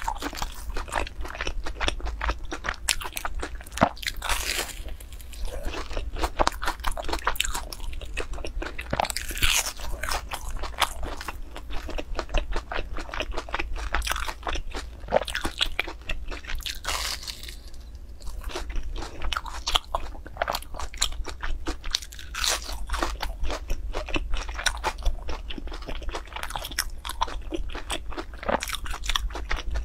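Close-up crunching bites and chewing of breaded, deep-fried croquettes, a dense run of crisp crackles from the fried crust, over a steady low hum.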